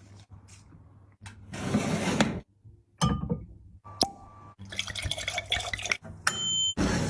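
Close-miked eating and drinking sounds: liquid sloshing and pouring, with short clinks and rings of glass or tableware.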